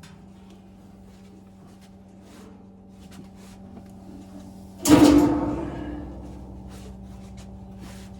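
A steady low hum with scattered small clicks, then a sudden loud bang about five seconds in that rings on and dies away over about a second.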